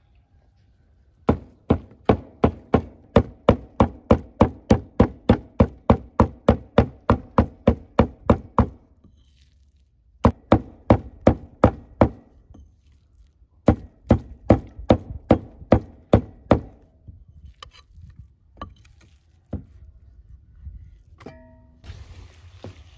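Repeated blows on wood, about three a second, each with a short ringing knock. A long run of some two dozen strikes comes first, then two shorter runs after brief pauses, then a few scattered strikes near the end.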